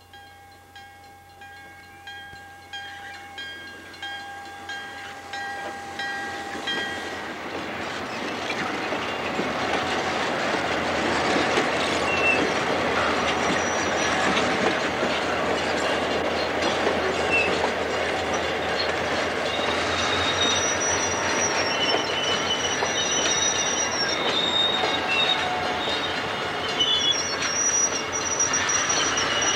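Algoma Central passenger train rolling past close by, its wheels clattering over the rail joints with high-pitched flange squeal from about two-thirds of the way in. In the first few seconds, before the train arrives, a faint horn sounds in the distance along with regular ringing.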